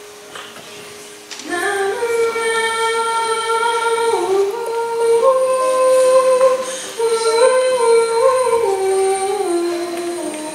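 A woman singing a slow melody into a microphone, with long held notes that step up and down. The singing comes in strongly about a second and a half in.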